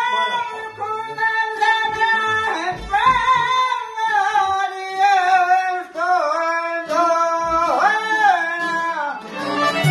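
A folk ensemble of voice, violin, accordion and long-necked lutes plays a slow, free-time passage. A man sings long held notes that bend and ornament over sustained accordion and violin tones.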